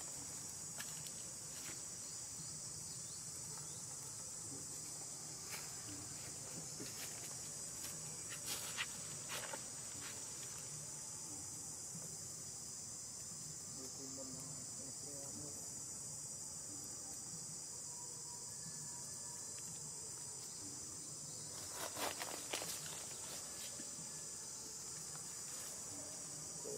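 Steady high-pitched insect chorus of crickets or cicadas, with occasional short clicks and rustles; the loudest cluster of these comes near the end.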